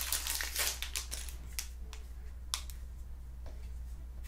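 Trading-card pack wrapper crinkling and crackling as it is handled and opened. The crinkling is dense at first, then thins to a few separate sharp crackles.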